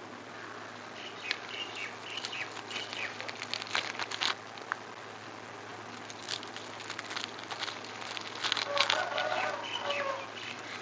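Pestle pounding a damp bait mixture of peanut cake, chocolate and salt biscuits in a stone mortar: soft, irregular knocks and clicks. Birds chirp in the background, near the start and again near the end.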